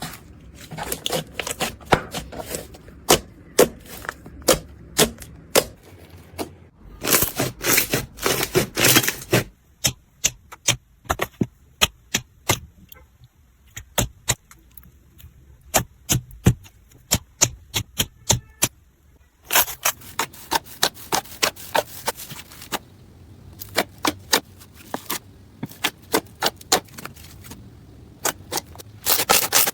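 Slime being squeezed and worked by hand close to the microphone, giving many sharp clicks and pops. They come in dense runs about seven, nineteen and twenty-nine seconds in, and are sparser in between.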